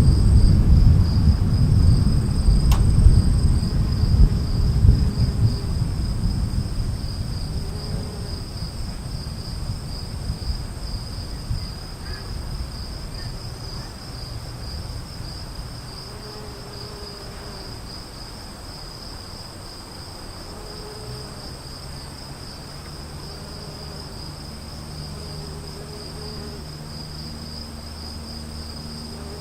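A long low rumble of thunder, loudest at the start and fading away over about ten seconds, over a steady high-pitched insect trill.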